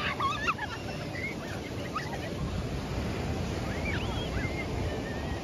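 Ocean surf washing onto a sandy beach, with wind on the microphone. A few short high cries rise and fall over it, the loudest right at the start.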